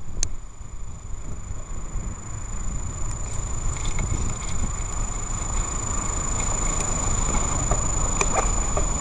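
Street traffic noise at a busy road junction, a steady low rumble that grows a little louder near the end, with a few short clicks and rattles.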